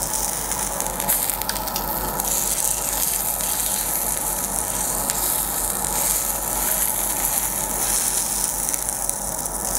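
Thick slices of pork belly sizzling steadily on a hot non-stick grill plate at about 190 °C, searing after being turned to the other side. A few light clicks come about a second in.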